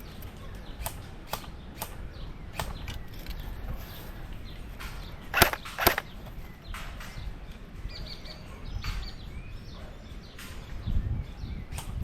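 Airsoft guns firing: scattered sharp pops, the two loudest close together about halfway through.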